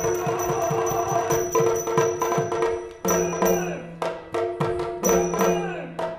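Yakshagana music accompanying a string-puppet play: quick drum strokes over a steady drone, with a short break about halfway through.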